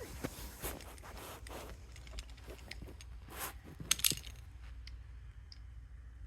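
Faint, scattered clicking and clinking of small hard objects being handled, with a couple of sharper ticks about four seconds in.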